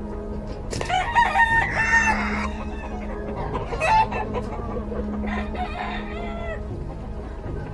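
Rooster crowing: one loud, long crow about a second in, then a shorter call near four seconds and a fainter crow a little later.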